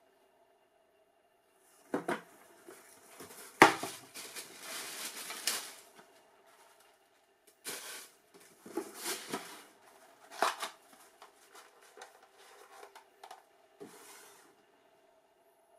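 A cardboard shoebox being handled and opened, then tissue paper rustling and crinkling as a running shoe is unwrapped and lifted out. A string of short knocks and crackles starting about two seconds in, the loudest a sharp knock of the box a little later.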